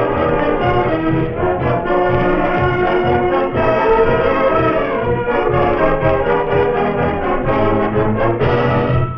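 High school band playing, with trombones and trumpets carrying the tune over a steady beat, heard from a 1965 45 RPM record.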